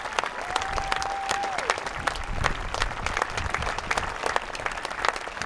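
Tennis crowd applauding a match win, a dense patter of many hands clapping. About half a second in, one long steady high note rises above the clapping for a second or so and falls away at its end.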